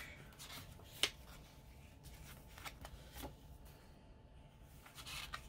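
Paper sticker-book pages being turned and handled: soft rustles and light clicks, with one sharper click about a second in.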